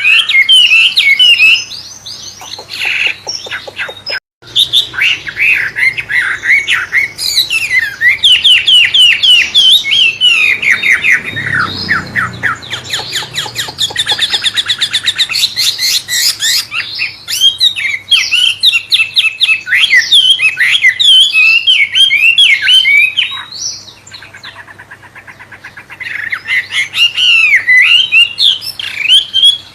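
Wambe songbird singing a long, varied, murai-like song of rapid whistles and fast trills, with a short break about four seconds in and a softer passage near the end.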